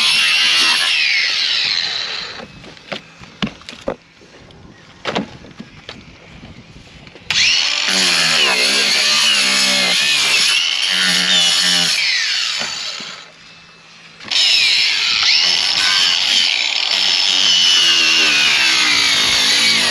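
A saw cutting through the boat's rotten wooden deck in loud spells. It stops for a few seconds about two seconds in, with a few knocks in the lull, then starts again, with a short break near 13 seconds.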